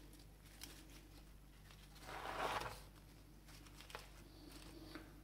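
Faint rustle of frilly lettuce leaves being handled and laid onto a burger bun on a wooden board, swelling briefly a couple of seconds in, with one soft tap a little before four seconds in.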